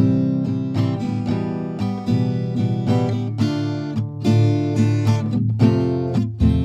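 Background music: an acoustic guitar playing a sequence of plucked notes and chords.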